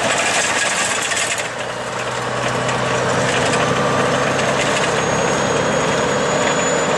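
Log truck's diesel engine running steadily under way, heard from inside the cab with road noise. The first second and a half are noisier and rattly, and a faint high whine comes in about five seconds in.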